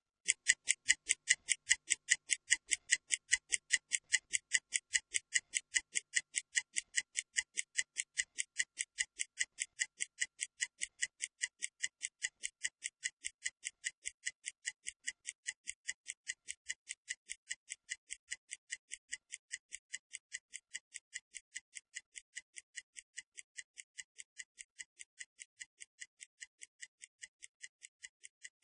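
Stopwatch ticking sound effect: fast, even, high-pitched ticks, several a second, slowly fading, timing a 30-second rest countdown.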